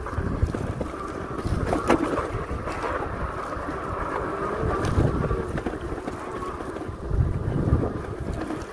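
Wind buffeting the microphone over the steady whine of a two-wheel-drive Philodo fat-tire e-bike's hub motors under way.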